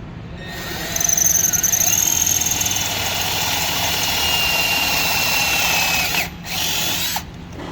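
Electric drill with a 5/16-inch bit opening up a hole in a battery cable terminal, a steady high-pitched whine for about five seconds. It stops briefly and then runs again in one short burst.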